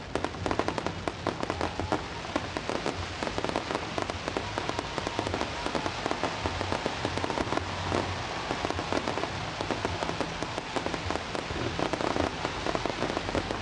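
Fireworks display: a dense, continuous crackling of many gold crackle-star shells bursting at once, with rapid pops layered over one another.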